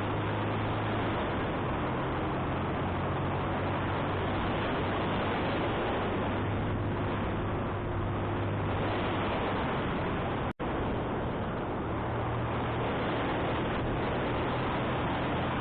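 Wind rushing over the microphone on a moving motorcycle, with the engine running steadily beneath it on an uphill ride. About ten seconds in, the sound cuts out for a split second.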